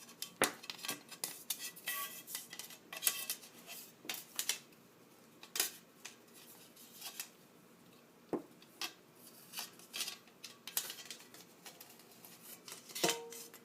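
Irregular clicks, taps and scraping of hard plastic parts being handled and pulled apart while a NutriBullet blender base is disassembled. A brief ringing clink comes near the end.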